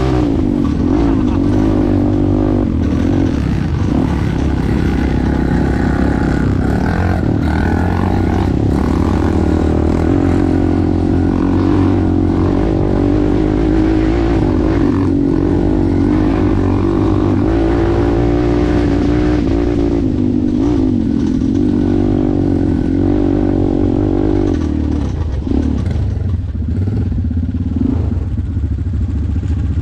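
ATV engine running under way, its pitch wavering up and down with the throttle over a steady low rumble, easing off slightly near the end.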